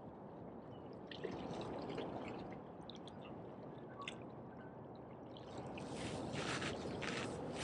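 Small waves lapping and splashing against jetty rocks, a steady wash of water with bursts of splashing about a second in and again near the end.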